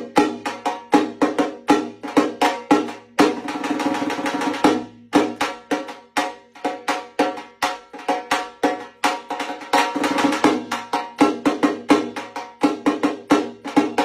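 Dhaak, the Bengali barrel drum of Durga Puja, beaten with sticks in a fast, driving rhythm, breaking into dense rolls about three seconds in and again near the ten-second mark.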